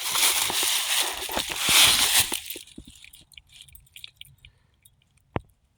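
Dry leaves and brush crunching and rustling for about two and a half seconds, then a few faint clicks and one sharp snap near the end.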